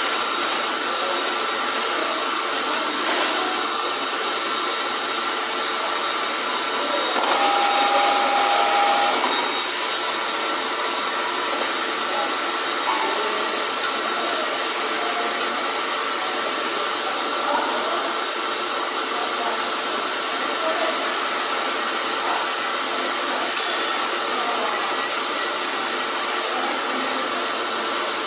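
Steady hissing, whooshing running noise from a tube-processing machine and surrounding factory machinery, with faint steady hums throughout. A short steady beep-like tone sounds for a second or two about seven seconds in.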